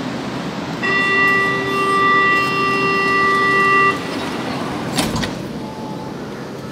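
Metro train door-closing warning buzzer: one steady buzzing tone for about three seconds, then a single sharp knock about five seconds in as the doors shut, over the steady hum of the train standing at the platform.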